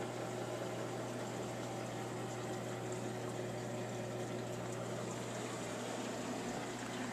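Saltwater reef aquarium's pumps and circulating water: a steady rushing water noise with a low, even hum.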